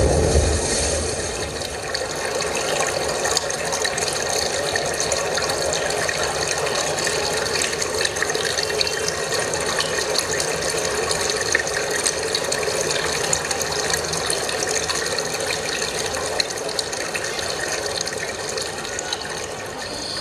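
Recorded sound-effects track played over the hall's loudspeakers: a steady rushing noise dense with fine crackles and ticks, opening with a brief low rumble.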